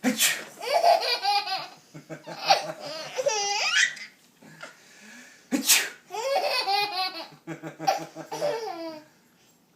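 A man's fake sneeze, then a baby's hysterical laughter in pulsed bursts with high squeals. A second fake sneeze about six seconds in sets off another run of laughter.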